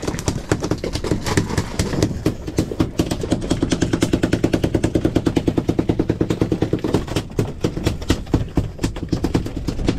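Spinning reel clicking rapidly and evenly under the load of a hooked albacore tuna on a hard-bent rod. The clicking is most regular and strongest in the middle of the stretch.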